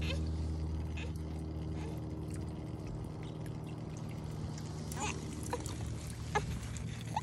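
Water from a homemade rock-topped fountain pouring and trickling down wooden slats, with scattered drips and splashes. A low steady hum fades out over the first few seconds.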